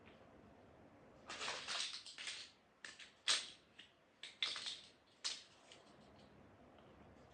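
Plastic Lego bricks being handled and pressed together: a run of rattling and clicking from about a second in to about five seconds, with sharp clicks near the middle and near the end of the run.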